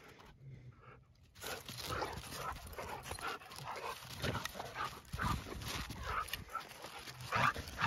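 A Rottweiler and a golden retriever play-wrestling: panting and dog noises mixed with paws scuffing in snow, starting after about a second and a half of quiet.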